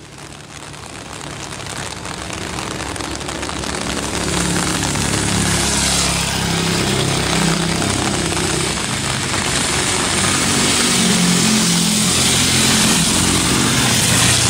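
High-speed electric train running past at speed: a rushing noise of wheels on rail and air that builds over the first few seconds as it approaches, then holds loud and steady with a wavering low hum underneath.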